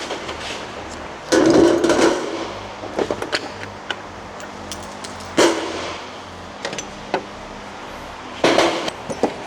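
Workshop clanks and knocks from tools and metal parts being handled: three loud hits, each ringing briefly, with lighter clicks and taps between.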